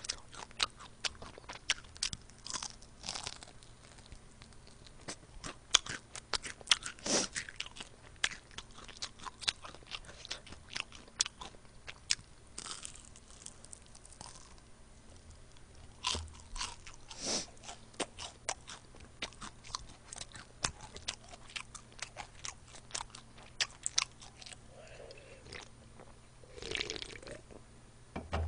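Close-miked biting and chewing of crispy fried chicken wings: many small, irregular crunches.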